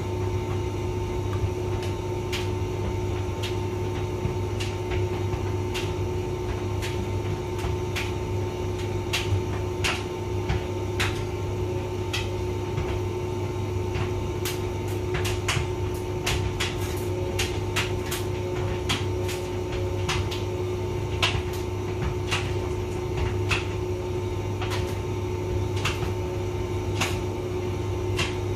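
Hotpoint vented tumble dryer running: a steady motor and fan hum with irregular light clicks and taps as the drum turns.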